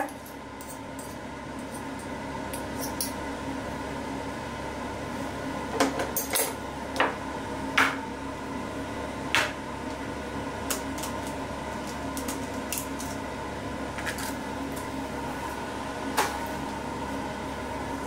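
Metal fork and spoon clinking and scraping against a ceramic bowl, in scattered sharp taps, over a steady hum.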